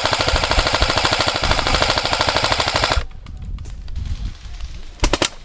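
Airsoft rifle firing one long full-auto burst of rapid, evenly spaced shots that stops about three seconds in. Two sharp cracks follow near the end.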